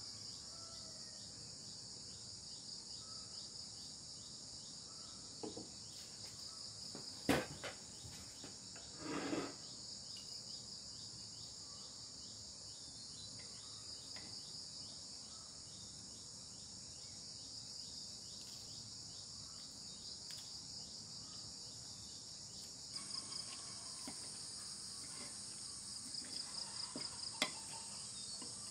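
Steady, shrill insect chorus, a high drone with a fast pulsing texture. About seven seconds in there is a single sharp knock, the loudest sound, followed a couple of seconds later by a short scrape. Near the end come a few light clinks of a metal spoon on a ceramic plate.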